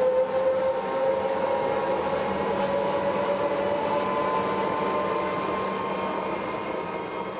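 Electric trolleybus heard from inside while riding: a steady whine from the traction motor and drive, with a main tone and a higher one drifting slightly in pitch over road and body noise, fading out near the end.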